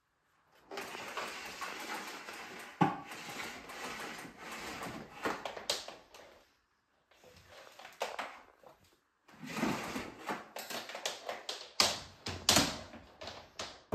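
Handling noise from a canister vacuum cleaner that is switched off: its power cord being pulled out and its hose moved, with rustling and scattered sharp clicks, the loudest about three seconds in and near the end, and a short lull about six seconds in.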